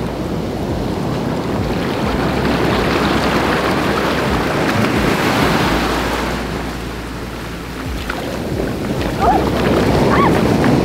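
Ocean surf washing in around the wading angler's legs. One surge of foam swells over a few seconds and eases off, and another comes in near the end. Wind rumbles on the microphone.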